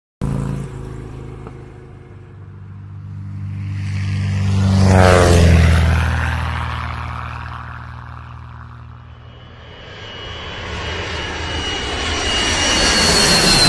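A motor vehicle's engine passes by, swelling and then fading, with its pitch dropping as it goes past about five seconds in. A louder rushing engine sound then builds toward the end.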